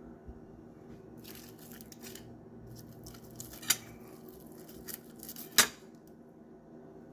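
Crisp pan-fried galunggong (round scad) being picked up and pulled apart by hand: an irregular crackling and tearing of the dry fried skin and fins. Two sharp clicks come in the second half, about two seconds apart.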